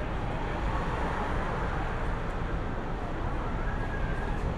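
Steady city street traffic noise: the even sound of passing vehicles, with a faint, brief high tone about four seconds in.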